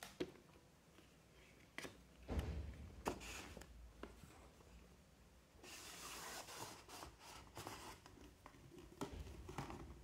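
Faint cardboard packaging handling: a few light knocks and taps as the box is picked up, then a paper sleeve sliding off a cardboard knife box with a drawn-out rub about six seconds in, followed by more soft knocks.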